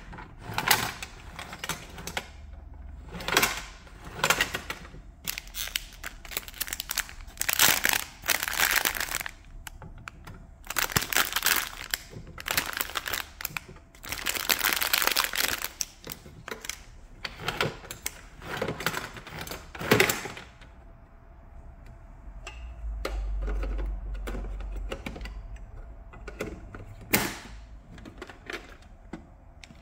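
Hands handling a plastic toy claw machine: a run of clicks and knocks from its plastic parts and housing, with bursts of crinkling plastic wrapping, the longest about halfway through, and a low rumble from the machine being moved near the end.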